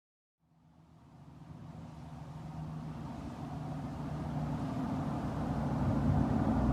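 Federal Signal Model 2 mechanical siren starting up: a low motor-and-rotor rumble that grows steadily louder.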